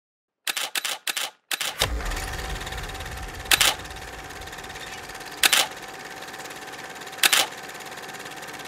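Old film projector sound effect: a quick run of mechanical clicks as it starts, then a steady whirring hiss with a faint hum and a louder click about every two seconds.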